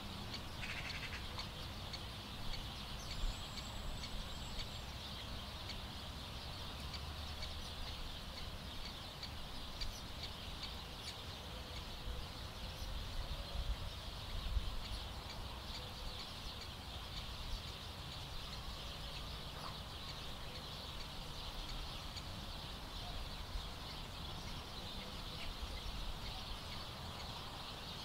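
Waterbirds calling on a lake, over a steady high-pitched outdoor background with an uneven low rumble.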